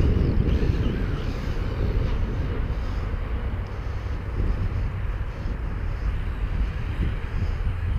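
Steady low wind rumble on the microphone, with the faint running of a Traxxas X-Maxx electric RC monster truck driving through snow.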